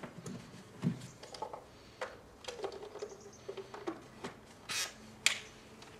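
Quiet handling noises: scattered small clicks and knocks, with a faint squeak around the middle and a short hiss about three-quarters of the way through.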